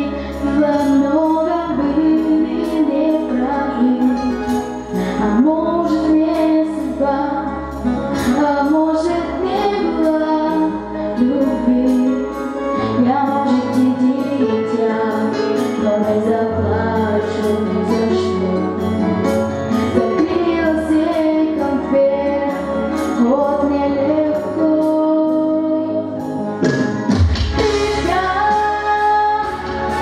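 A female vocalist singing solo through a handheld microphone over a recorded backing track with a steady beat. Near the end the accompaniment swells with a deeper bass.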